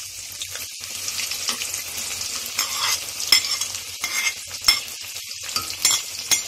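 Sliced onions sizzling as they drop into hot oil in a metal kadai, a steady frying hiss. A few sharp clicks against the pan stand out, about halfway through and near the end.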